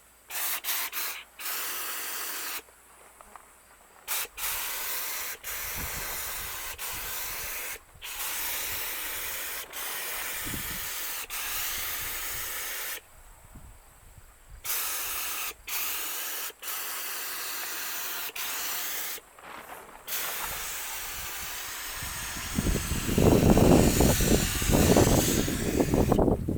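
Compressed-air paint spray gun hissing in repeated bursts of one to several seconds as the trigger is pulled and released, spraying primer. The gun is giving little volume and spattering. Near the end, wind buffets the microphone with a louder low rumble.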